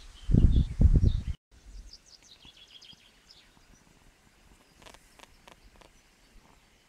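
Small songbirds chirping in woodland, quick high notes repeating. Low buffeting noise on the microphone covers the first second or so and cuts off abruptly, leaving faint birdsong and a few soft clicks about five seconds in.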